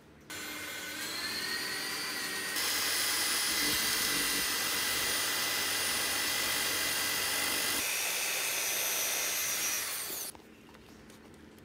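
Electric drill spinning a disc of melted sugar to make cotton candy: a motor whine that starts suddenly and rises in pitch, then runs faster and louder a couple of seconds in. It winds down with a falling whine about ten seconds in.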